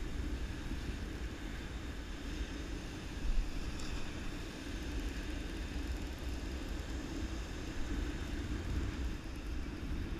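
Steady wind rumble on the microphone over the continuous wash of surf breaking on a sandy beach.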